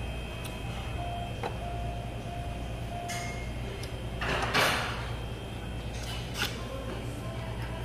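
Steady low hum of a restaurant dining room, with a short loud rasping noise about halfway through and a brief click a couple of seconds later.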